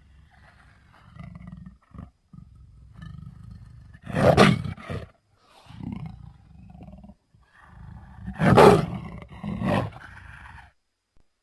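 Leopard vocalising: low growls broken by two loud roaring calls, one about four seconds in and another about four seconds later.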